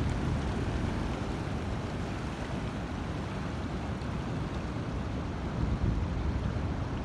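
Wind buffeting the microphone: a steady low rumble that swells a little in gusts near the end, over a hiss of wind and surf noise.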